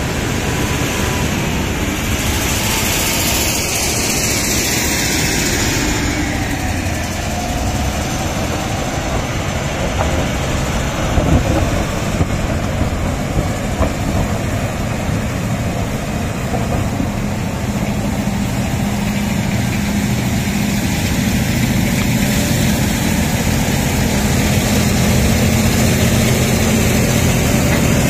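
Komatsu D155A crawler bulldozer's diesel engine running steadily as the machine works. A few seconds in, a high whine falls in pitch; a few sharp knocks come around the middle, and the low engine note grows stronger near the end.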